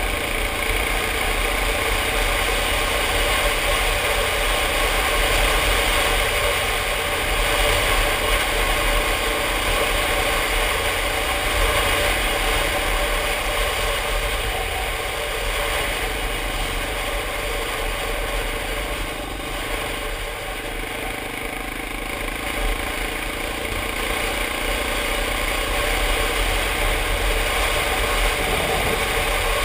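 Dual-sport motorcycle engine running steadily at road speed, with wind rushing over the helmet-mounted microphone. The engine eases off slightly about two-thirds of the way through.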